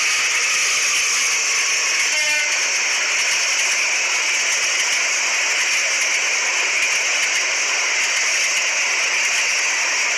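Battery-powered toy steam train playing a steady hissing steam sound effect through its small speaker, with a brief faint toot about two seconds in.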